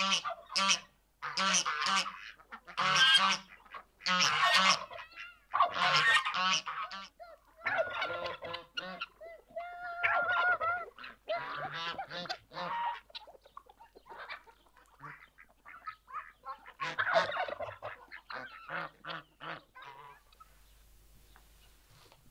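Domestic geese honking loudly and over and over, several birds calling over one another. The calls thin out partway through, come back in a last loud bout, and stop about two seconds before the end.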